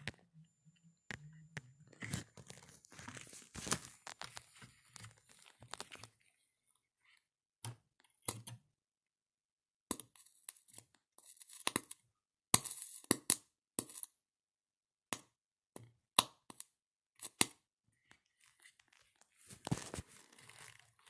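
Electric arcing crackling and snapping where an alligator clip touches a pencil-lead carbon rod carrying 30 volts. It comes as irregular runs of sharp cracks with silent gaps between them; the loudest single snaps fall in the middle of the stretch.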